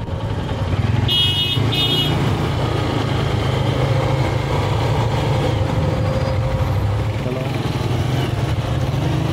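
Motorcycle engine running steadily while riding. About a second in, a horn beeps twice in quick succession.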